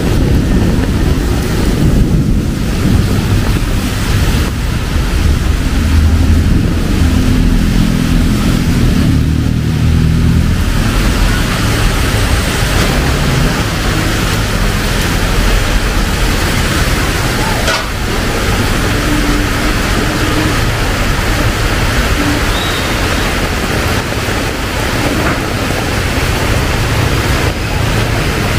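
Heavy rain pouring steadily, with a deep rumble underneath; the hiss of the rain grows brighter about eleven seconds in.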